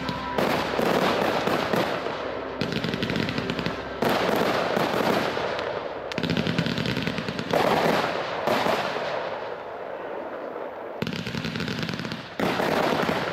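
Aerial fireworks shells bursting into crackling stars, a dense, rapid crackle of many small pops. It comes in several waves that start and stop abruptly.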